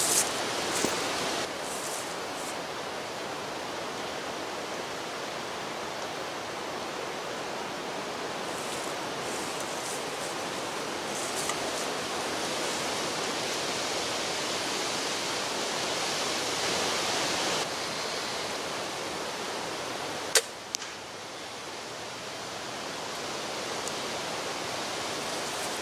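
A single sharp crossbow shot about twenty seconds in, followed by a softer knock about half a second later, over steady wind noise on the microphone. Rustling of gear being set down at the very start.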